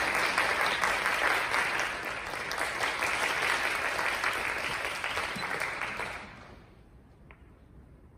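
Audience applauding, a dense patter of many hands that fades out about six seconds in.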